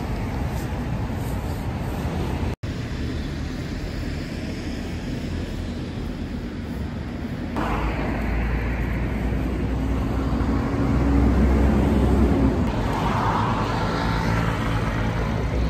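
Road traffic noise: a steady wash of passing cars, cut off for an instant about two and a half seconds in and growing louder around ten to thirteen seconds in.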